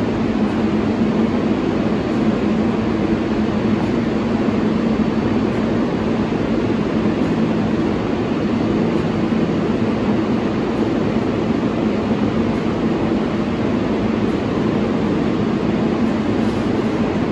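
R142-family New York City subway train running at a steady speed: an even rumble of wheels on rail with a constant low hum.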